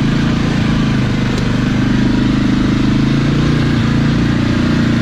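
Polaris Ace 570's single-cylinder engine running steadily as the machine drives along.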